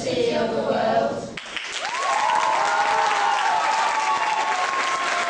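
A small group of young voices singing unaccompanied into a microphone, breaking off abruptly about a second and a half in. Audience applause follows, with a few voices calling out over it.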